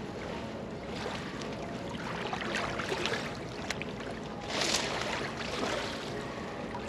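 Steady wind and river noise on the microphone, with rustling of a padded jacket and a few small clicks of fishing tackle being handled.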